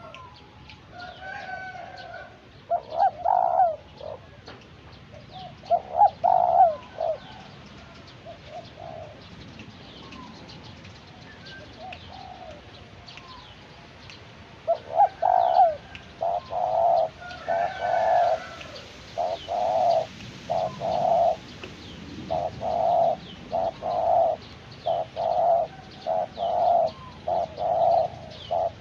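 Spotted dove cooing: a few coo phrases, then from about halfway a long run of evenly repeated coos. Small birds chirp faintly in the background throughout.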